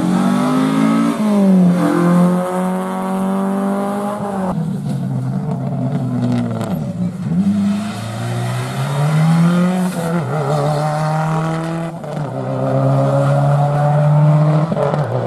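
Rally car engine under hard acceleration, its pitch climbing and then dropping sharply at each gear change, several times over. Midway it lifts off briefly and falls in pitch before climbing again.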